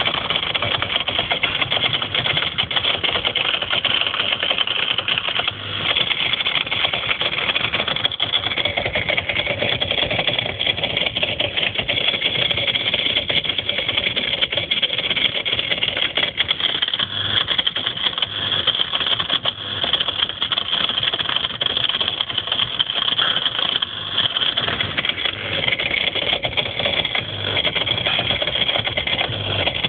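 Whirlpool ADG 7540 dishwasher running with a fast, continuous rattling from its pump underneath. The rattle is the sign of a faulty pump, which was cured by replacing it.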